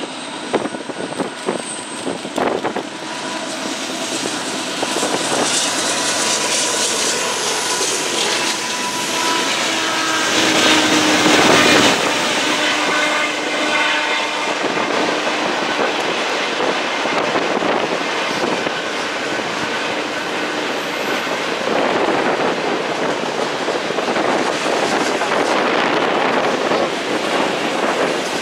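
A diesel-hauled freight train passing: the locomotives run by, loudest about a third of the way in, then a long string of freight cars rolls past around the curve with a steady rumble and wheel clatter.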